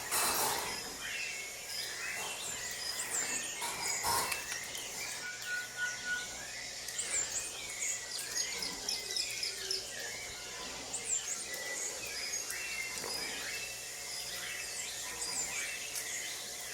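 Birds calling: many short chirps and whistles overlap throughout, some rising and some falling. A brief rush of noise comes at the start and again about four seconds in.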